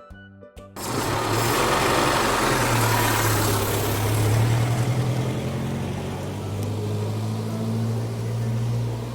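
A short music jingle, then, about a second in, a motor vehicle engine starts up suddenly and runs steadily with a low hum and a rushing noise.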